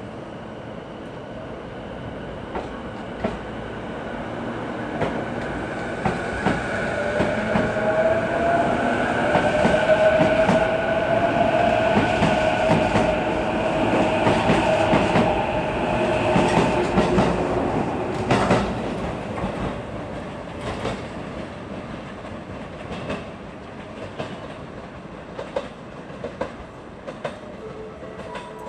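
JR East E233-series electric commuter train pulling out from the platform. Its motor whine rises in pitch as it gathers speed, and its wheels click over the rail joints. The sound is loudest in the middle as the cars pass, then fades as the train leaves.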